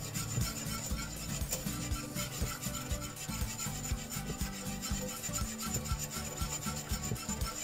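Wire balloon whisk beating thick béchamel sauce in a saucepan, its wires scraping and rubbing against the pot in rapid, even strokes, several a second. A knob of butter is being whisked in, with the stirring kept up so the flour does not settle and catch on the bottom.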